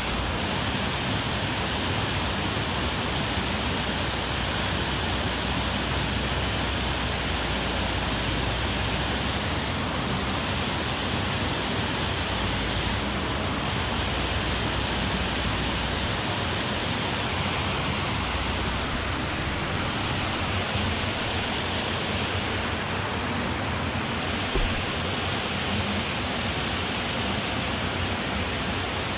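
Water spilling over a low concrete weir into a river pool: a steady, even rushing noise. One brief knock about three quarters of the way through.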